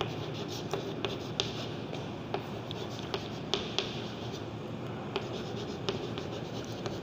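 Chalk writing on a chalkboard: a string of irregular short taps and scratches as letters are written.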